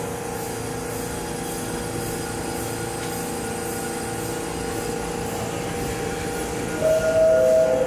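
A New York City subway train hums steadily as it stands in the station. Near the end comes its louder two-note door chime, a higher tone falling to a lower one, the signal that the doors are about to close.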